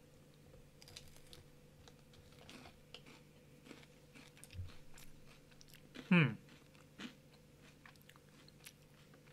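Kit Kat wafer bar being bitten and chewed close to the microphone, with small crisp crunches scattered throughout. About six seconds in comes a brief voiced sound from the eater, falling in pitch.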